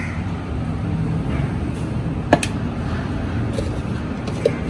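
Steady low background rumble, with one sharp click about two seconds in and a fainter tick near the end: a spoon tapping the ceramic bowl as dollops of ginger-garlic paste are dropped onto the fish.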